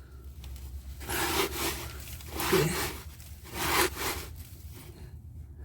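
Wrench working a loosened, rusty sway-bar bracket bolt: three rasping metal scrapes, each about half a second long and spaced about a second and a quarter apart.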